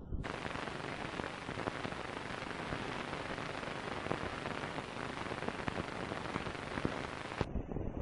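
Steady hiss with scattered crackles, cutting in abruptly just after the start and cutting off abruptly near the end: surface noise of an old film soundtrack.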